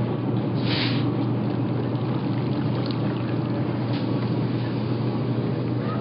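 Poultry processing machine running steadily with a low hum, with water splashing and trickling. There is a short hiss about a second in.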